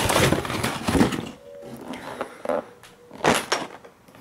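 Cardboard scraping and rustling as a boxed parts kit is pulled out of a cardboard shipping carton and handled, loudest in the first second, with a single sharp knock a little after three seconds in.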